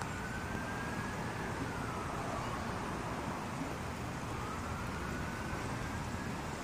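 Emergency vehicle siren in a slow wail, its pitch rising and falling twice, over steady background noise of street traffic.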